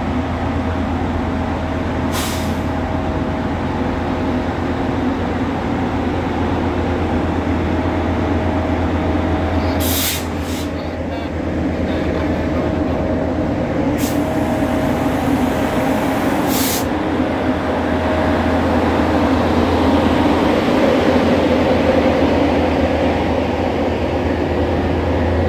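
Metrolink commuter train's diesel locomotive running steadily while standing at a platform, broken by several short sharp hisses of released compressed air. Near the end it grows louder as the train pulls out and the locomotive rolls past.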